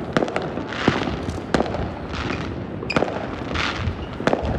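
Fireworks going off: sharp, irregular cracks with short hissing bursts between them.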